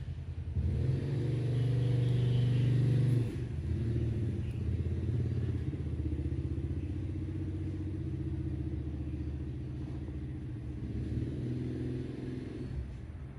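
Electric hair clippers buzzing steadily, louder for the first three seconds and easing off near the end.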